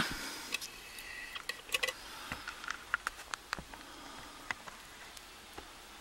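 Scattered small clicks and light metal taps as a Master 140 padlock is set and clamped in a small lockpicking vise. The taps thin out after about four and a half seconds.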